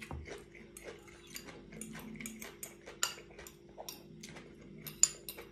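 Metal fork clinking and scraping against a small ceramic bowl while grated beet salad is picked up and eaten: a run of small clicks, with two sharper clinks about three and five seconds in.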